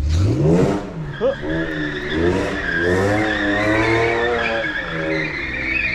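Honda NSX with a swapped J-series V6 revving hard and wavering up and down through donuts, tyres squealing throughout. The engine has a rod knock.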